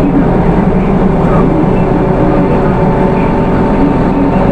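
Hino Rainbow II city bus's Isuzu 4HK1 four-cylinder diesel running, heard from inside the cabin: a steady drone with a thin, even whine over it.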